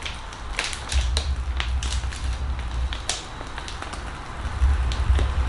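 A plastic piping bag crinkling and crackling in small irregular clicks as whipped cream is squeezed out, over a low rumble.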